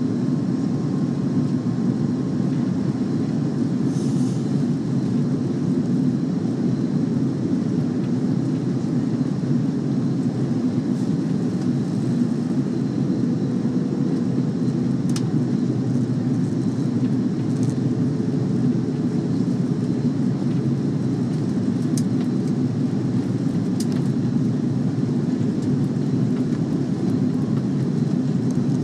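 Steady low drone of an airliner cabin on approach with flaps extended: engine and airflow noise heard from a seat over the wing, with a few faint clicks.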